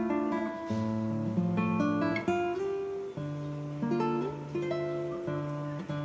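Background music: an acoustic guitar playing, several notes ringing together and changing about every second.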